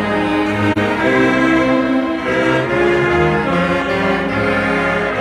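College marching band performing a slow piece of long held chords, each lasting about a second before moving to the next, with no drum beat or cymbal crashes.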